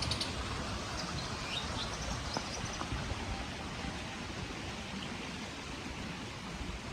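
A steady rush of water with a few short bird chirps in the first couple of seconds.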